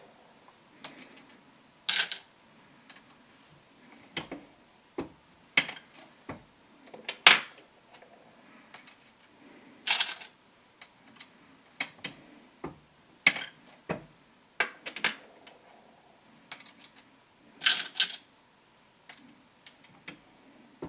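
Irregular metallic clicks and clinks of brass 6 GT cases and copper bullets being handled while bullets are seated on a MEC single-stage reloading press, the handle stroked to its stop for each round. Sharper clacks come every two to four seconds among lighter ticks.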